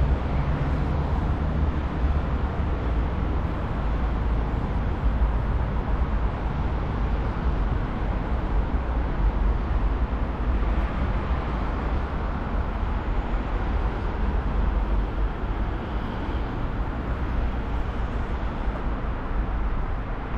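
Steady outdoor city ambience: a low rumble with an even hiss above it, without distinct events.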